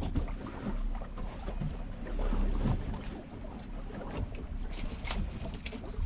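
Waves slapping and rocking an aluminium fishing boat in rough water, with wind rumbling on the microphone; a few short sharp knocks about five seconds in.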